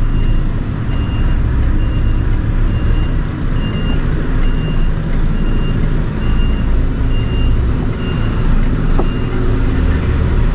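Reversing alarm beeping at a steady pace, a little over one beep a second, stopping about nine seconds in, over a lorry's diesel engine running.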